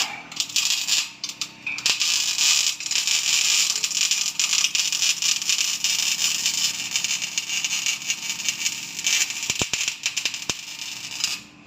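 Electric stick (arc) welding on iron: the electrode's arc crackling and sizzling continuously, cutting off near the end.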